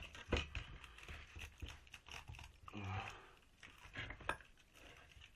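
Copper winding wire being pulled out of the stator slots of a washing machine motor: irregular scraping and crunching with sharp clicks, the loudest about a third of a second in and another about four seconds in. The wire comes out tight because several slot sections are being pulled at once.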